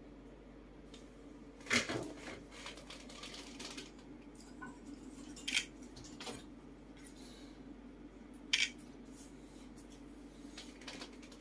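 A handful of sharp clicks and light taps of small hard objects being handled, the loudest about two seconds in, with others near the middle and near the end, over a steady low hum.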